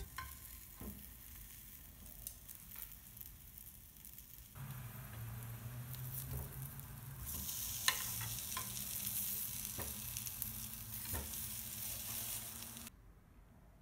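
Hash brown patties sizzling as they fry in a small rectangular tamagoyaki pan, with light clicks of wooden chopsticks against the pan as the patties are placed and turned. The sizzle grows louder about halfway through and stops abruptly near the end.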